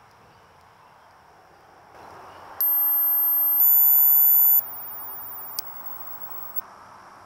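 Careland solar-powered ultrasonic animal repeller triggered by its motion sensor, giving off the audible part of its deterrent signal: a very high-pitched steady tone that starts about two and a half seconds in and steps up in pitch about once a second. It is loudest in the first two steps, then fainter, and stops about five and a half seconds in.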